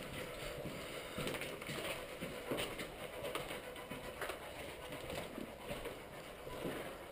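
Faint, irregular footsteps on a floor littered with debris, with a few soft clicks and knocks.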